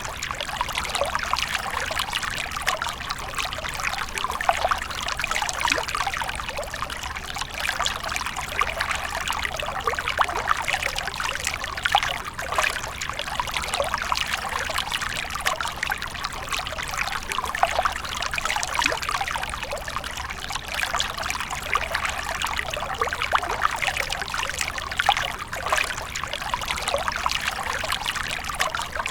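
Water from a fountain splashing and trickling steadily in a continuous flickering stream, with many small splashes.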